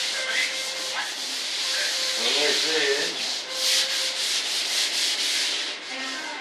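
Spray primer hissing onto a foam-and-fibreglass RC jet fuselage in one continuous spray that stops near the end.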